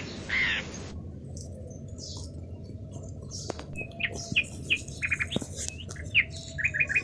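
A crow caws once at the start. Then, in a different recording, small birds chirp in short, scattered high calls over a steady low background noise, ending in a quick run of chirps.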